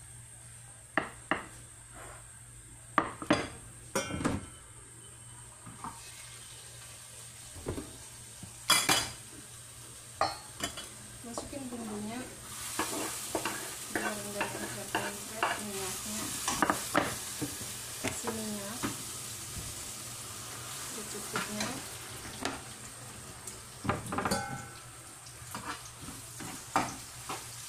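A few sharp clinks and knocks of a spatula and utensils against a nonstick frying pan. From about twelve seconds in, ground spice paste sizzles in hot oil while it is stirred and scraped around the pan with the spatula.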